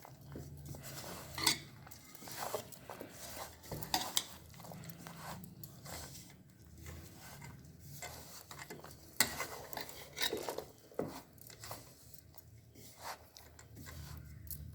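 Hands rubbing masala marinade into chicken pieces in a bowl, with scattered light knocks and clinks against the bowl.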